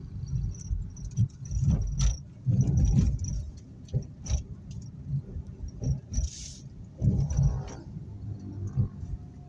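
Car driving, heard inside the cabin: a steady low road rumble with irregular knocks and clicks of rattling, and a short hiss about six seconds in.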